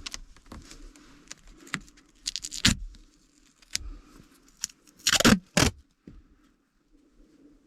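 Sharp plastic clicks, knocks and short scrapes of dashboard trim and hand tools being worked, as a Honda N-BOX air-conditioning control panel is pried loose. A pair of loud clacks comes about five seconds in.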